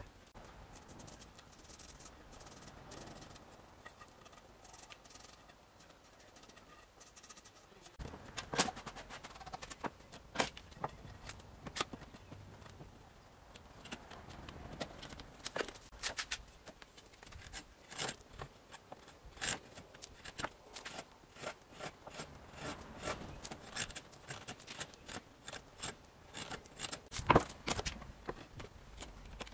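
Workbench handling: irregular sharp clicks and knocks as one-handed bar clamps are squeezed tight on a pallet board and the wood knocks against the wooden bench. Fairly quiet for the first several seconds, then frequent clicks, with one louder knock near the end.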